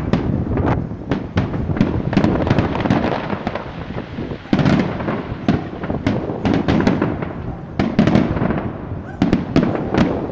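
Aerial firework shells bursting in close succession: a continuous run of sharp bangs and crackles over a rumbling base, with a louder surge of reports about halfway through.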